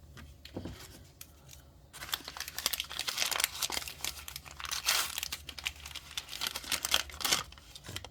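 Crinkling and tearing of small plastic packaging from a miniature craft kit being handled and opened by hand, starting about two seconds in as a dense run of crackles that stops shortly before the end.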